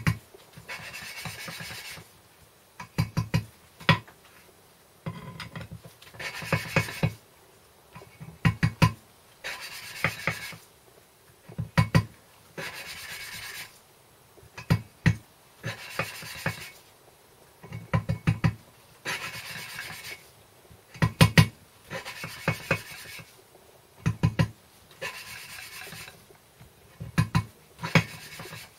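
A poppet valve being lapped into its seat in the cast-iron cylinder block with coarse grinding paste, turned back and forth by a screwdriver. It makes gritty rasping strokes of a second or two, repeated about every two seconds, with clusters of sharp clicks between the strokes.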